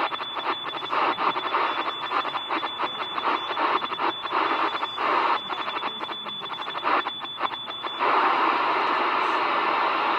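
Very fast Morse code received on a shortwave radio: a single high-pitched tone keyed on and off in rapid dots and dashes over static hiss, with the hiss dipping each time the tone sounds. The code is sent so fast that the listener takes it for machine-sent. It stops about eight seconds in, leaving only the receiver's hiss.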